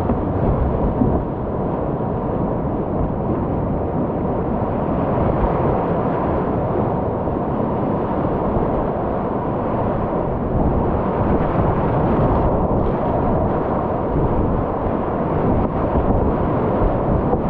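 Whitewater rapids rushing around a kayak, heard close up from a camera on the paddler: a loud, steady, deep rush of churning water with no break.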